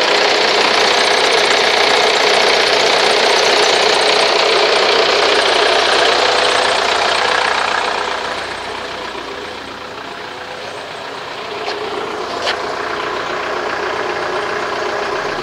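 1998 VW Jetta TDI's 1.9-litre four-cylinder turbo diesel idling steadily. It is loud at first, drops off about eight seconds in, and rises a little again near the end.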